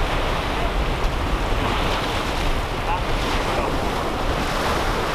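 Waves breaking and washing over a flat rock reef, with wind rumbling on the microphone; a steady, unbroken wash of noise.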